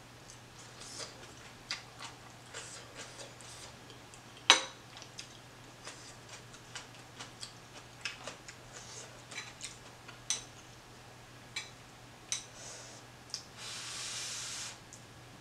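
Close-up eating sounds of a person eating a noodle soup: wet chewing and mouth clicks, with one sharp click about four and a half seconds in. Near the end comes a noodle slurp lasting just over a second.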